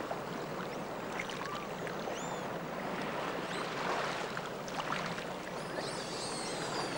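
Steady rush of flowing water, with a few faint high chirps about two seconds in and again near the end.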